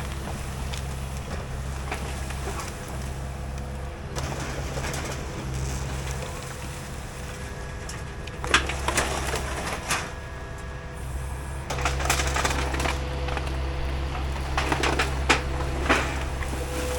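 Heavy machinery's engine running with a low drone that swells and eases. Brief clatters and scrapes come about halfway through and several more near the end.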